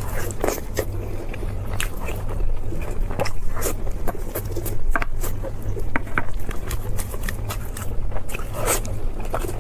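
Close-miked eating sounds: irregular crunchy bites and chewing on beef short ribs, over a steady low hum.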